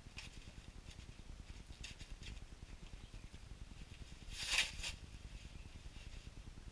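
Hands unwrapping a white foam packing sheet, with soft rustling and scratching throughout. There is one louder crinkle about four and a half seconds in.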